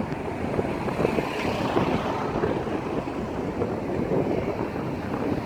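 Wind buffeting the microphone over the steady rush of swollen floodwater, a continuous rumbling noise that flickers irregularly.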